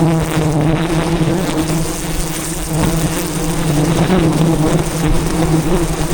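Swarm of wild honeybees buzzing around a giant hive: a loud, steady hum.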